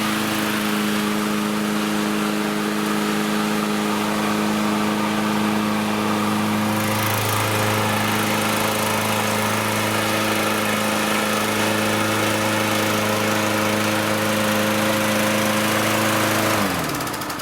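Toro walk-behind mower's 6.5 hp Tecumseh single-cylinder engine running steadily at speed. Near the end it is shut off and its pitch falls as it winds down.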